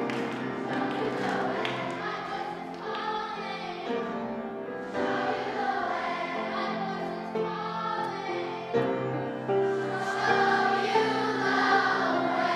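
A choir singing a song, several voices holding and moving between sustained notes.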